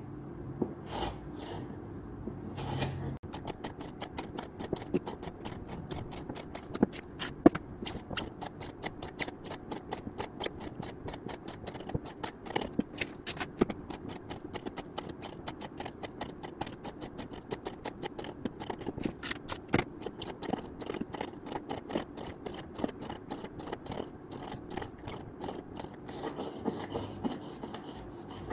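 Mora knife cutting 10 mm jute rope against a wooden round: a long run of quick scraping slicing strokes through the fibres, picking up to a fast, even pace about three seconds in, with a few louder knocks of the blade on the wood.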